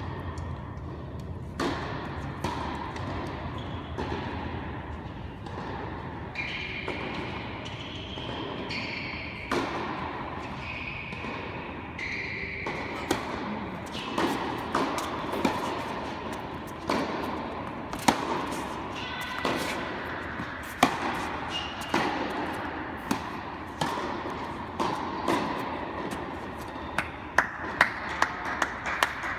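Tennis balls struck by rackets and bouncing on an indoor court, each hit a sharp knock echoing in the hall. A rally of hits about a second apart runs through the middle, and a quick run of knocks comes near the end.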